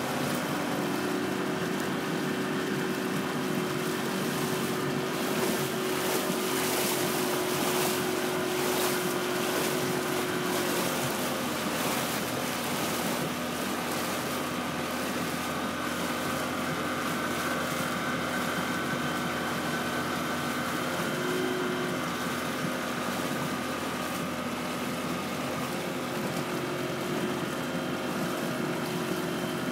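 A boat's engine running steadily while under way, with water rushing past the hull and wind buffeting the microphone in gusts between about five and twelve seconds in.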